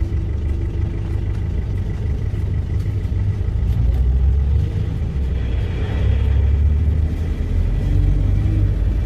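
Hyundai County LWB bus's diesel engine running, heard from inside the cabin as a steady low rumble that grows a little louder about four seconds in.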